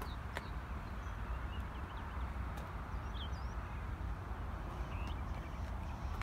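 Small birds chirping now and then in short, high calls over a steady low rumble, with one sharp click about half a second in.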